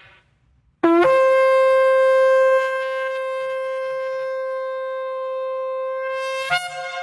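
A shofar blown in one long held blast: the note scoops up into pitch at the start, sounds loud and steady, eases a little in loudness partway through, then breaks upward to a higher note near the end and trails off.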